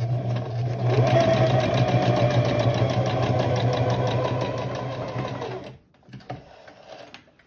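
Electric sewing machine stitching a seam in cloth, the needle running at a steady fast rate, then slowing and stopping about six seconds in. A few faint clicks follow.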